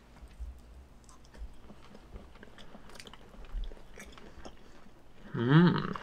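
People chewing grilled prawns, faint and close, with small mouth and utensil clicks. Near the end comes a short, wavering 'mmm' of enjoyment.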